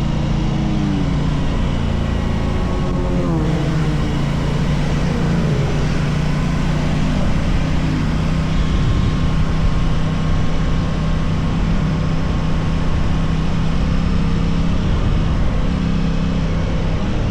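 Aprilia RS660 parallel-twin motorcycle engine running at road speed over steady wind noise, its revs falling twice in the first half and then holding fairly steady.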